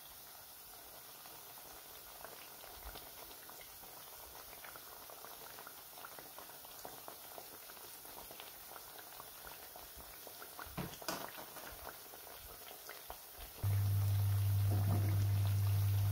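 Aloo pakoras (battered potato slices) deep-frying in hot oil: a steady fine sizzle and crackle, with a short cluster of sharper crackles or clicks a little past halfway. Near the end a loud steady low hum cuts in and drowns it.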